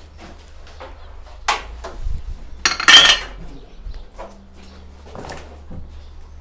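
Porcelain dishes and glassware clinking and clattering as they are handled in a cardboard box. A few separate clinks, with the loudest, longest clatter about three seconds in.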